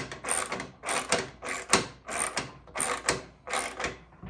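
Socket ratchet clicking in a steady back-and-forth rhythm, about two strokes a second, as it runs a 13 mm nylon lock nut down onto its bolt.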